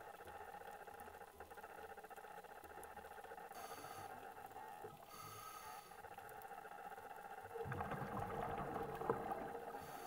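Underwater ambience on a coral reef: a steady low hum with faint crackling. It grows louder and rougher about three-quarters of the way through, with a few sharp clicks near the end.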